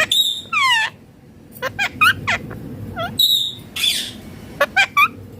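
Indian ringneck parakeet calling: harsh squawks at the start and again about three seconds in, between runs of short, quick chirps that sweep down in pitch.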